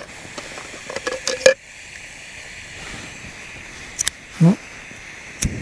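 Jetboil gas stove burner hissing steadily, with a few sharp clicks: a loud one about a second and a half in and a quick pair about four seconds in.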